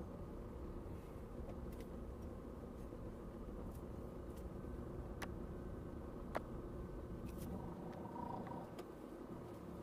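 Steady low rumble of a car's engine and road noise heard from inside the cabin while creeping in slow traffic, with a few sharp clicks, the loudest about five and six seconds in.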